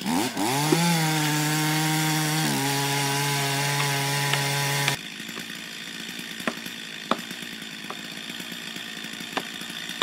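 Chainsaw revving up and running at a steady high speed, then settling to a lower steady pitch about two and a half seconds in. It cuts off suddenly halfway through, leaving a quieter steady hiss with a few sharp knocks.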